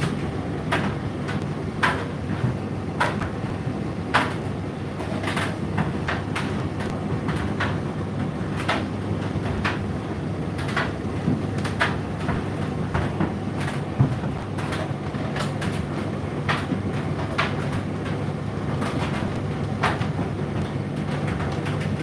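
Indesit IDC8T3 condenser tumble dryer running: a steady motor and drum hum, with irregular clicks and knocks of the load tumbling in the drum, about one or two a second.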